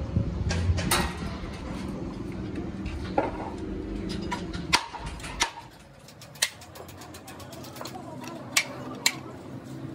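A long steel bar spanner clinking against the hub cap at the centre of a dump truck's front wheel as it is turned on it, a few sharp metallic clinks with quicker, fainter ticking between them in the second half.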